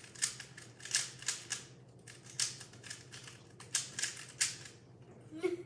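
Plastic 3x3 speed cube being turned by hand, its layers clicking and clacking in quick, irregular runs.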